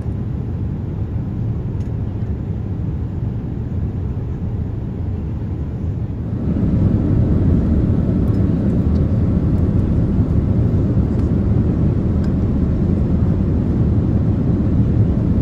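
Steady cabin noise of a Boeing 787-8 Dreamliner in flight: an even, low rumble of airflow and engines. It steps up and gets louder about six seconds in.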